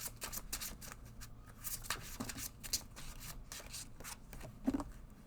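A deck of oracle cards shuffled by hand: a quick, irregular run of soft flicks and rustles.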